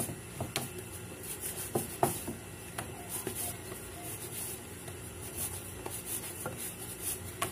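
Hands kneading dough in a metal bowl: soft rubbing and pressing, with scattered light clicks and knocks from the bowl as it is turned.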